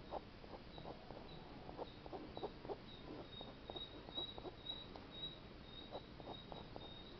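Faint, irregular short scratches of a ballpoint pen drawing quick strokes on paper, a few a second. A faint high-pitched chirping comes and goes behind them.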